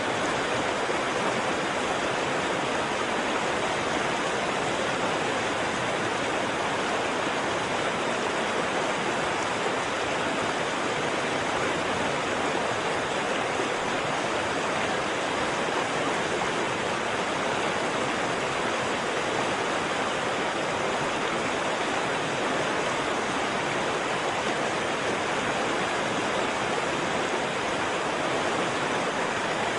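Waterfall: falling water rushing in a steady, unbroken roar with no changes.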